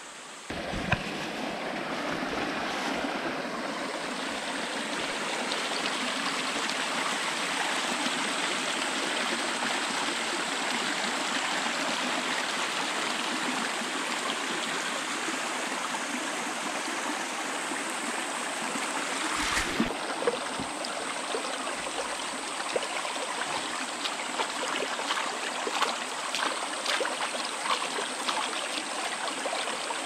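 Shallow mountain stream running over rocks, a steady rushing babble. A thump comes about two-thirds of the way through, with scattered light clicks after it.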